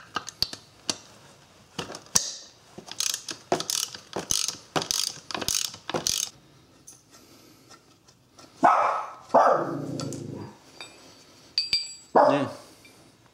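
Hand socket ratchet clicking in quick runs as it spins out the engine support bracket bolts from an aluminum cylinder head, for the first half. Then a dog barks three times, the second bark drawn out and the loudest sounds of all.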